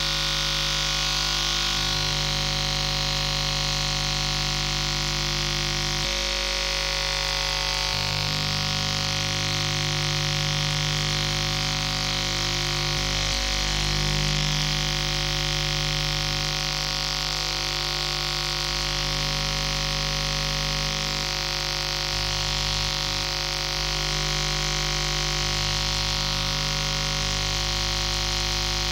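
Harsh electronic noise drone from analog machines: many held humming tones under a bright band of hiss. The low hum shifts every few seconds.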